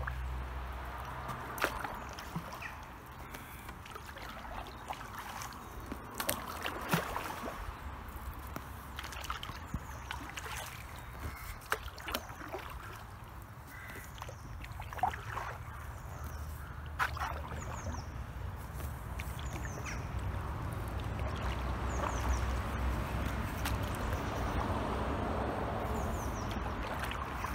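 A single-bladed paddle dipping and pulling through calm river water, with irregular drips, trickles and light splashes, as an inflatable canoe is paddled along.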